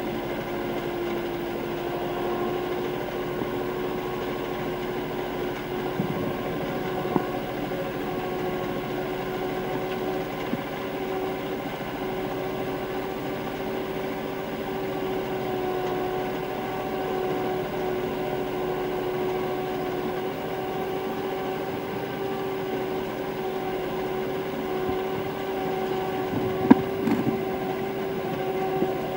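Erkunt Nimet 70e tractor engine heard from inside the cab, running at a steady speed while the tractor drives across a worked field. A few sharp knocks or rattles come through, the loudest one near the end.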